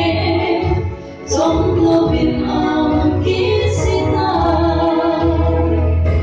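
Two women singing a gospel song together, amplified over a church loudspeaker system, with a low instrumental accompaniment under their voices. The singing breaks off briefly about a second in and then carries on with long held notes.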